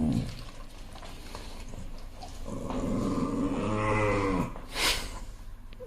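A dog growling: one low, drawn-out growl of about two seconds, followed by a short sharp huff of breath.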